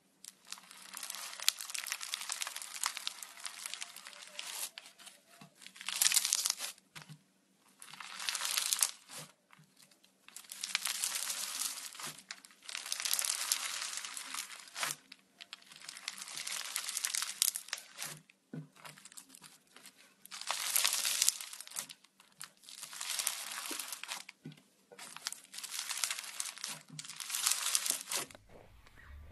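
Foam-bead slime (floam) squeezed and kneaded by hand, crackling and crunching as the tiny foam beads press together. It comes in about a dozen bursts of one to four seconds each, with short pauses between squeezes.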